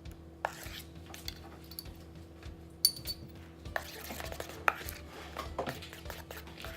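A spoon stirring and scraping slime in a bowl, with irregular clinks and scrapes and one sharp clink about three seconds in, as the borax activator is mixed in.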